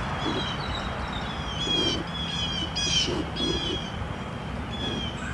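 Wild birds calling: a run of short, falling chirps about twice a second through the middle, with fainter, lower calls underneath.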